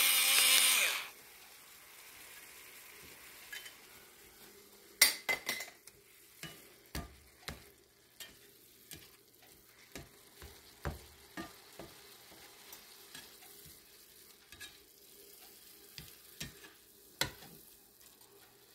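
Shredded lettuce sizzling in hot bacon grease in a frying pan, stirred with a plastic spatula that clicks and scrapes against the pan every second or so. A loud whirring noise cuts off sharply about a second in.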